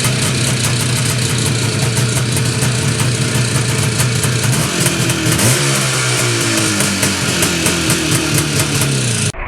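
IZh Jupiter-5 motorcycle's two-stroke twin engine running, with a dense ticking clatter over its note that the owner questions as possible extraneous noise. The engine speed rises and falls briefly about five seconds in.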